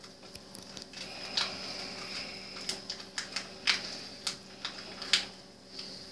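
Seasoning shaker being shaken over a pork loin on aluminium foil: irregular sharp clicks and taps of the shaker, about a dozen, loudest in the middle.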